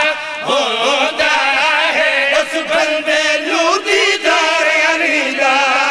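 Several men's voices chanting a devotional refrain together, with long wavering held notes.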